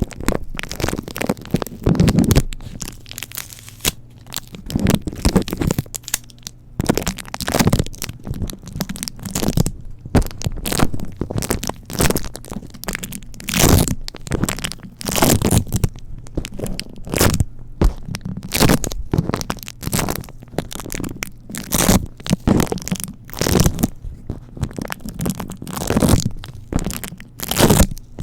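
Adhesive tape touched, pressed and crunched directly against a bare microphone. It makes a close, steady run of irregular sticky crackles and crunches.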